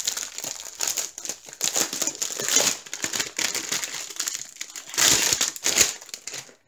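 Clear plastic bag crinkling and rustling in the hands as a rolled diamond painting canvas inside it is handled and pulled out, busiest about five seconds in.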